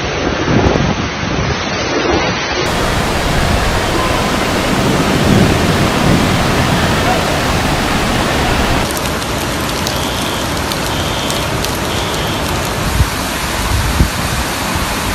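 Storm noise: a loud, steady rush of cyclone wind and water, changing abruptly twice as the footage cuts between scenes. Two short knocks sound near the end.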